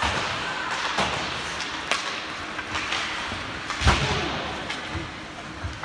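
Ice hockey play on the rink: skate blades scraping the ice with sharp stick-on-puck clacks about one and two seconds in, and a loud thud against the boards about four seconds in, the loudest sound.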